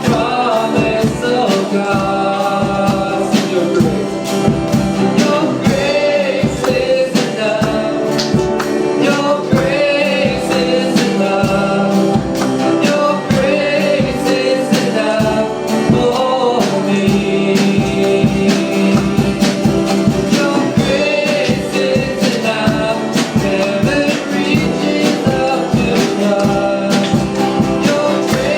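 Congregational worship music: a band playing a song with a steady beat while voices sing.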